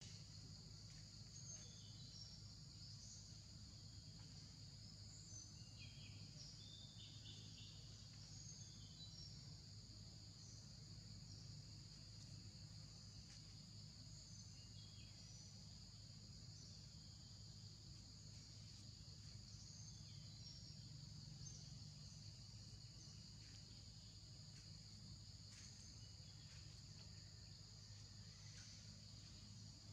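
Faint, steady high-pitched insect chorus, with scattered short chirps over a low steady hum.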